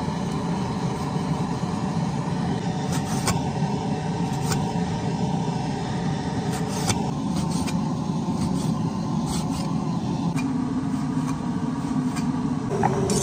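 A steady, loud mechanical roar with a few sharp taps scattered through it, fitting a cleaver's blade meeting a wooden cutting board as beef is sliced.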